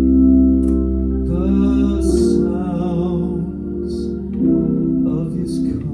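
Hammond organ playing a slow gospel song in sustained held chords over a steady bass.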